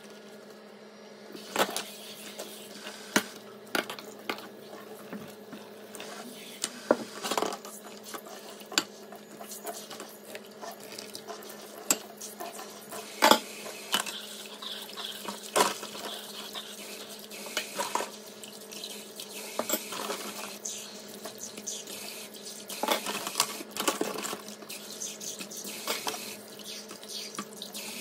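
Dishes being washed by hand in a stainless steel sink: a tap runs steadily onto a soapy stainless bowl, with frequent clinks and knocks of plastic containers and dishes against the steel, the loudest about thirteen seconds in. A faint steady hum sits underneath.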